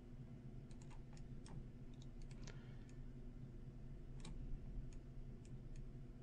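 A dozen or so faint, irregular computer mouse clicks over a steady low hum.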